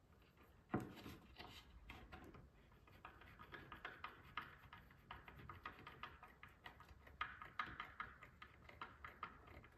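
Small hand screwdriver driving a screw into a wooden drawer corner: faint, irregular ticks and clicks of the bit turning in the screw head, with one sharper click about a second in.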